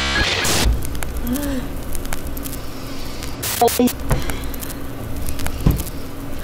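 A burst of crackling TV-static hiss that cuts off within the first second, followed by a low noisy ambience with a few scattered clicks and a dull thump near the end.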